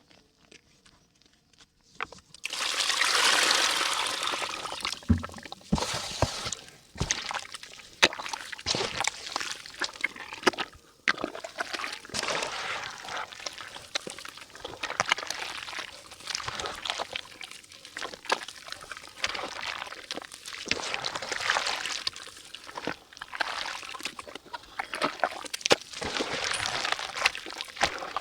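Water poured onto dry yellow mud in a clay pot, starting with a hiss a couple of seconds in. It is followed by continual crackling and crumbling with many small sharp clicks as the mud soaks and breaks up.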